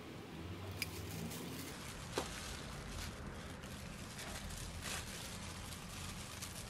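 Handling sounds of hands in disposable plastic gloves: soft crinkling of the gloves with light clicks and taps of a small glass beaker and a plastic lip balm tube, the sharpest click about two seconds in, over a faint low hum.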